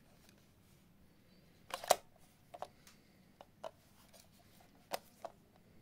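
Nikon Nuvis S APS compact film camera clicking mechanically as it is handled: a loud cluster of clicks about two seconds in, then several sharp single and paired clicks.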